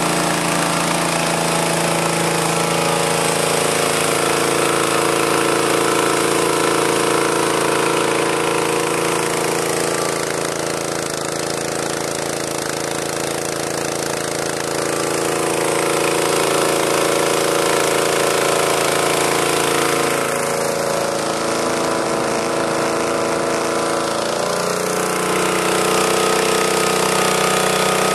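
Small petrol engine running at full throttle, driving a high-pressure diving compressor as it fills a scuba cylinder. A steady, loud mechanical drone whose speed wavers a few times and dips slightly in the middle.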